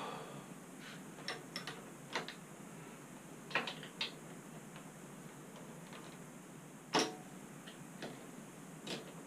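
Hand tools working on motorcycle front-end hardware: scattered, irregular sharp metallic clicks and clinks, the loudest about seven seconds in.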